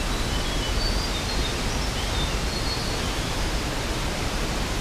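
Nung Nung waterfall's steady rushing of falling water, an even wash of noise, with a few faint short high chirps over it.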